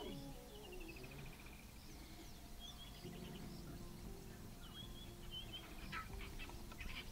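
Wild birds calling faintly: a falling trill of quick notes, then shorter chirps. A low steady hum sits underneath, and near the end comes a cluster of short, higher calls.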